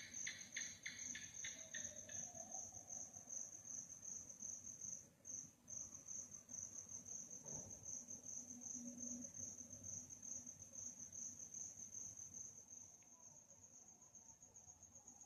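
Crickets at night, faint. One gives a steady, high, continuous trill that breaks off briefly about five seconds in. A second, lower chirp pulses about five times a second during the first two seconds.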